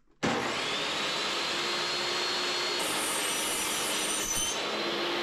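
Table saw switched on about a quarter second in: its motor whines up to speed and then runs steadily while a strip of mahogany is fed through the blade to cut a rabbet, with an added high hiss of the cut through the middle.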